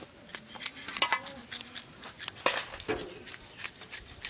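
Irregular clicks, taps and clatter of kitchen utensils and dishes being handled during food preparation, with the sharpest clacks about one second and two and a half seconds in.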